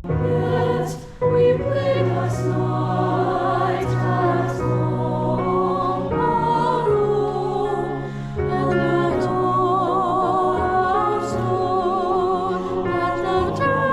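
High school choir singing in several parts, holding notes with vibrato.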